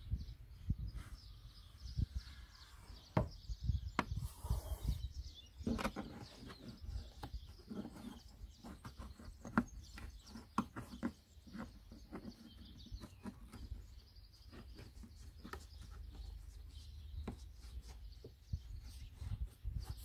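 Hands refitting a car boot's carpet side lining under the rubber tailgate seal: scattered soft taps, rubs and clicks of the trim being pressed into place, over a low rumble.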